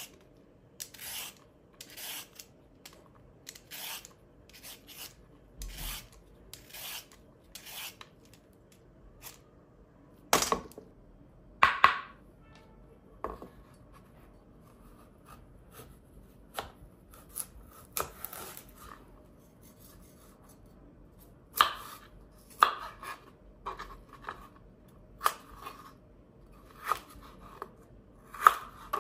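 A carrot being peeled with a hand peeler: evenly spaced scraping strokes, about one a second, for the first several seconds. Then a kitchen knife cuts the carrot into sticks on a cutting board, with sharp, irregular knocks of the blade on the board.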